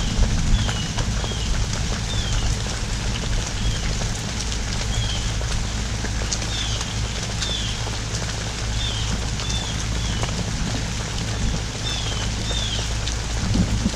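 Steady pouring rain from a hurricane's outer band, a dense even patter. Short, high chirps repeat about once a second over it.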